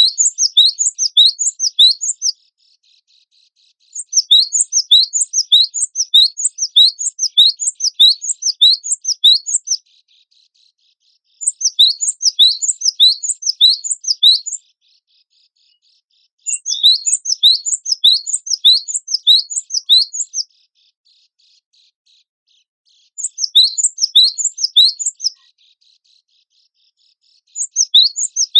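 A cinereous tit (gelatik batu) singing vigorously. Its song comes in bursts of quick, high, downward-slurred whistled notes, several a second, with pauses of a couple of seconds between bursts.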